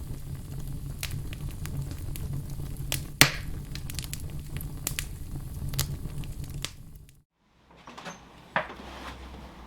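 Fire burning with a steady low roar and irregular sharp crackles and pops, one louder snap about three seconds in. It cuts off abruptly about seven seconds in.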